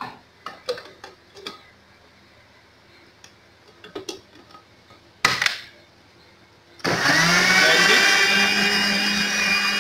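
Clicks and knocks of a stainless steel blender jug and its metal lid being set on a Panasonic blender base, then, about seven seconds in, the blender motor starts, rising briefly in pitch as it spins up, and runs steadily, blending ripe plantain with water.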